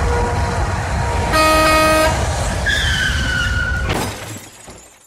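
Steady road and engine rumble heard from inside a truck cab on the highway, with a vehicle horn sounding once for under a second. A shorter high tone that falls slightly in pitch follows, then a click, and the sound fades away.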